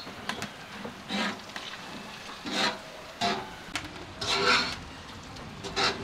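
A steel knife blade being sharpened by hand: five separate rasping strokes, unevenly spaced.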